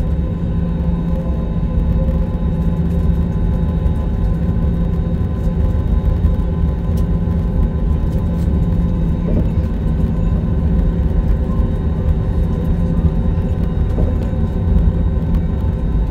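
Jet airliner engines and rolling noise heard inside the cabin over the wing as the plane moves along the ground before takeoff. It is a steady, loud low rumble with faint steady whining tones above it.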